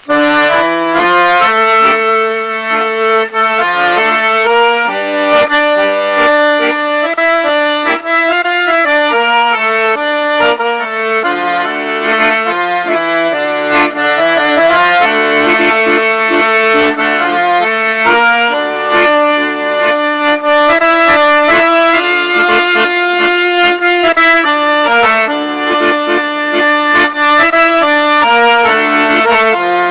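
Accordion-led music: an accordion playing a melody with chords and a lower accompaniment, in the style of an old Japanese popular song.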